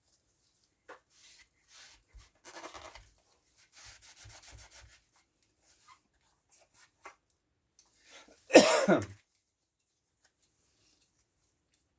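Soft, intermittent scraping and rubbing on a Stihl MS170 chainsaw bar as crusted paint is cleaned off. About eight and a half seconds in, a person sneezes loudly once; this is the loudest sound.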